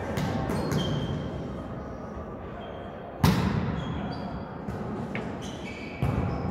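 A volleyball being struck during a rally in a reverberant sports hall. A sharp smack of the ball about three seconds in is the loudest sound, with another hit just before the end. Short high squeaks of shoes on the court floor come in between.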